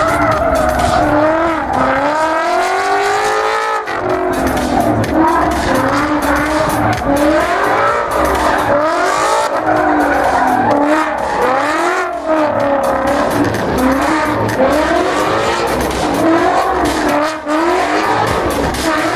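Ford Mustang drift car at full throttle, its engine revving up and down over and over as it slides, with tyres screeching and squealing in continuous wheelspin. A steady thumping music beat runs underneath.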